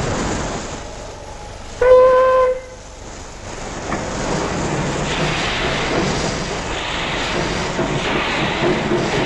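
A steam locomotive's whistle gives one short blast about two seconds in, the loudest sound. Around it is the steady rushing noise of the locomotive, which grows from about four seconds in.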